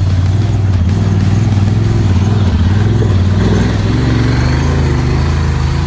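Honda side-by-side UTV's engine running at low revs under load as the machine crawls up a steep rocky ledge, the pitch wavering a little as the throttle is worked.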